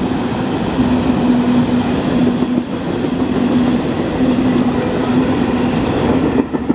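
Long freight train of empty intermodal spine cars rolling past below, a steady noise of steel wheels on rail with a low hum that comes and goes.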